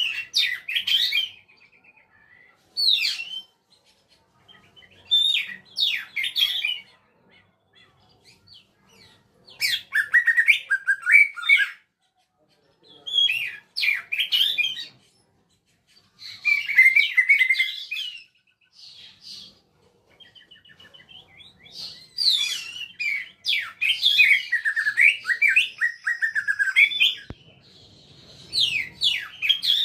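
Songbird singing in short bursts of rapid, varied whistled phrases with brief pauses between them. One longer run of song comes near the end.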